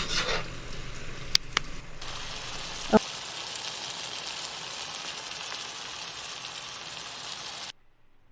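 Food sizzling in a hot frying pan, a steady hiss that starts about two seconds in and cuts off suddenly near the end, after a few light clicks.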